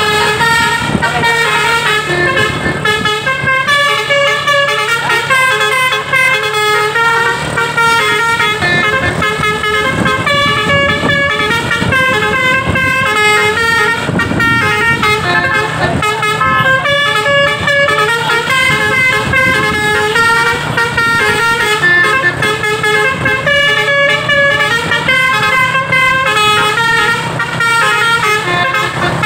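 Basuri V3 telolet horn on a tour bus playing a continuous multi-note melody, the tones stepping up and down in a repeating tune, over a steady low bus engine hum.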